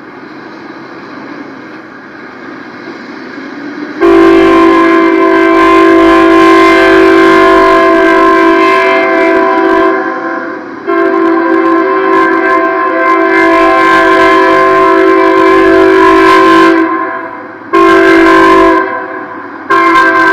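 Locomotive air horn sounding the grade-crossing signal, long, long, short, long, as a multi-note chord, after about four seconds of rising rumble from the approaching train. The last long blast is still going at the end.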